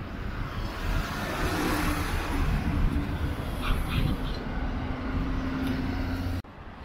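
Road traffic: a small truck and light vans driving past close by. The sound cuts off suddenly near the end.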